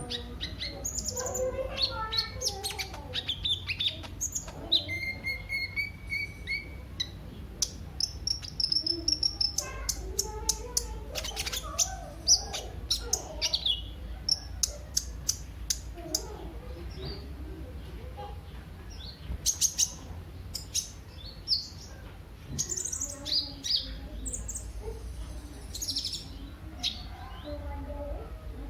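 Kolibri ninja (a sunbird) singing: a busy run of sharp high chirps and fast trills, with a few short held whistles.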